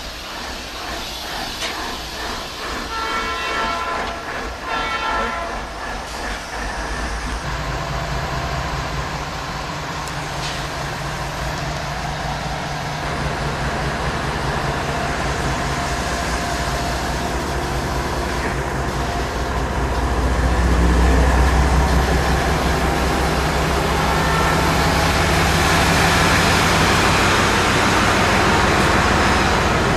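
Diesel locomotives at a terminal, with horns being tested in short blasts, a few about three to five seconds in and again around twenty-five seconds. A locomotive diesel engine's low steady drone comes in about seven seconds in and grows louder around twenty seconds.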